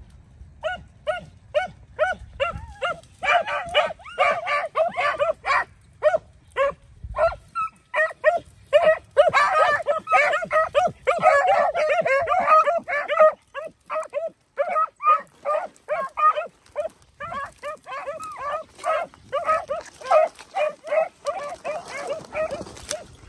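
A pack of beagles baying in quick repeated yelping calls, several dogs at once through the middle, as hounds giving voice while working a rabbit's scent in brush.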